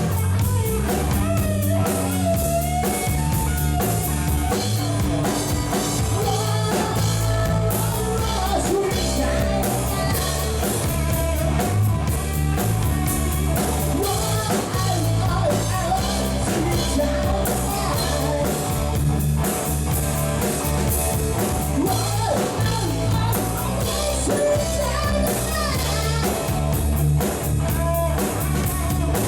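Rock music with electric guitar, bass, drum kit and singing, playing steadily.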